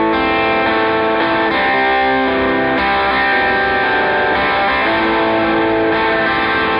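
Opening of a rock song: electric guitar with effects playing held chords that change about every second.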